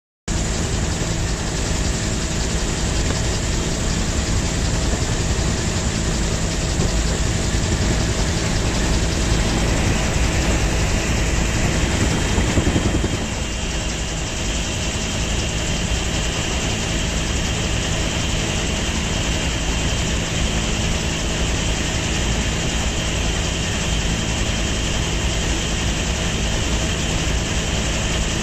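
A vehicle engine running steadily under a constant rush of road and wind noise, swelling briefly about twelve seconds in.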